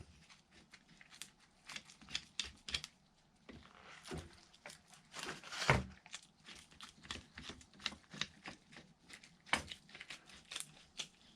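Scattered small clicks, taps and knocks of hands handling a mold with its aluminum end plates and clamps, the loudest strike a little before halfway.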